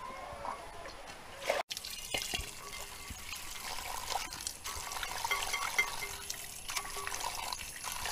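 Water running from a tap into a metal pot of water while hands swish and rub coriander leaves in it to wash them, with steady splashing. It begins after a brief gap about a second and a half in.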